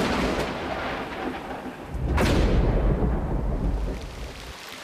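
Thunder: a crack right at the start and a louder one about two seconds in, each rolling on into a long low rumble that fades away near the end.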